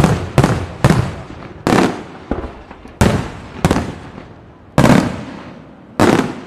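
Aerial firework shells bursting in quick succession, about nine loud bangs in six seconds, some only half a second apart, each trailing off as it dies away.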